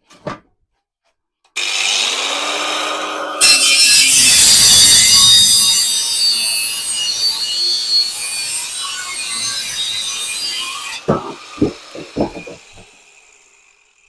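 Angle grinder spinning up about one and a half seconds in, then its disc biting into and cutting through a metal exhaust tailpipe for about seven seconds, loud and gritty, before it winds down near the end with a few knocks as the cut finishes.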